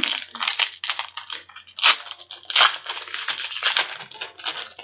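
Wrapper of a 2004 Bowman baseball card pack being torn open and crinkled in the hands: irregular crackling rustles, loudest about two seconds in.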